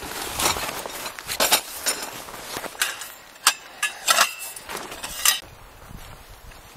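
Camping gear being handled: a string of irregular sharp metallic clinks and knocks, some ringing briefly, dying down after about five seconds.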